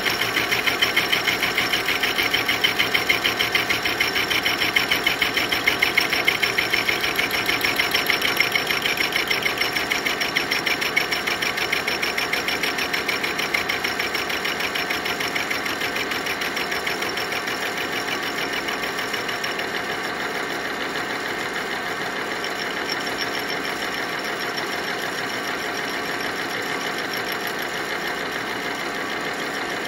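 Hole saw turning in a lathe chuck and cutting into a metal pipe fed at an angle under automatic feed: a steady, fast, chattering rasp of the saw teeth on metal. It is a little louder over the first ten seconds or so, then settles slightly quieter.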